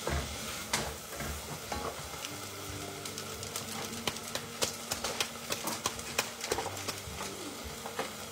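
Stirring in a pot on a gas stove, then a small plastic seasoning sachet crinkling as it is handled and torn open, with a run of sharp crackles about four to seven seconds in.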